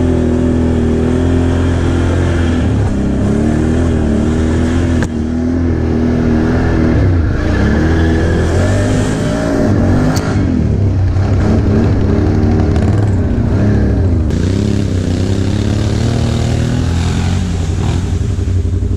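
Can-Am Outlander XMR ATV's V-twin engine running under load on a rocky trail, heard close up from on board, its revs rising and falling over and over as the throttle is worked. There is a brief drop in the sound about five seconds in.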